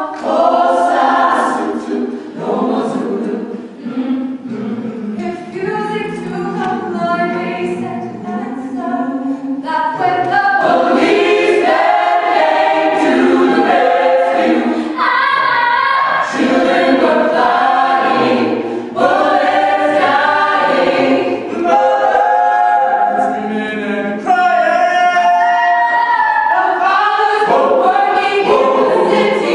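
Mixed-voice a cappella choir singing, with no instruments. It starts softer and grows fuller and louder about ten seconds in.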